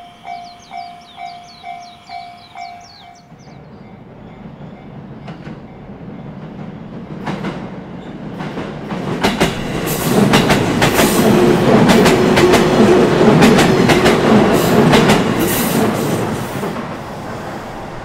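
Japanese level-crossing bell ringing in quick, even strokes, stopping about three seconds in. Then a JR East E233-series electric commuter train approaches with a growing rumble and passes loudly from about nine seconds, its wheels clattering over the rail joints, before fading near the end.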